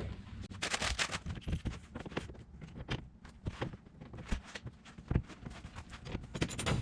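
Irregular light clicks, taps and knocks of metal clamp hardware being handled and fitted onto a pickup's bed rail.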